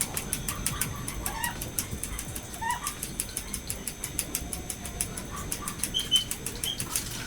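Scattered short bird chirps over a fast, even run of faint ticking clicks.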